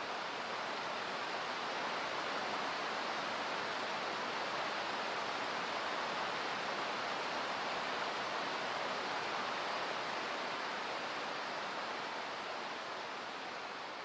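Steady rush of water splashing down a small stone cascade, with no distinct drips or splashes standing out, tapering off near the end.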